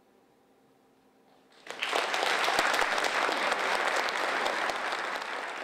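Near silence for a moment after the final note, then audience applause breaks out suddenly about a second and a half in and carries on.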